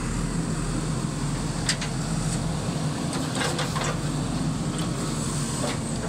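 Diesel engine of a JCB backhoe loader running at a steady, even pitch.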